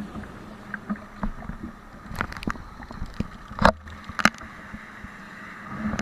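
Kayak being paddled on the water: a few sharp knocks and splashes from the paddle and hull, the loudest two about three and a half and four seconds in, over a faint steady wash of water and wind.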